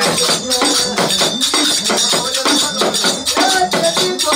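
Devotional folk music with fast, steady jingling and shaking percussion like a tambourine or rattle, and a voice singing briefly near the end.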